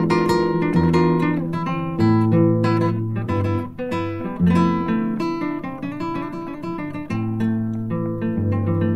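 Background music: an acoustic guitar playing a string of plucked notes over bass notes, with no singing.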